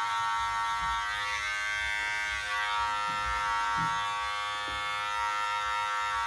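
Wahl Senior hair clipper running with a steady buzz as it trims beard hair.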